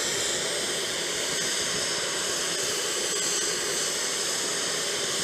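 Aircraft turbine running steadily on the ramp: an even rushing hiss with a faint high whine.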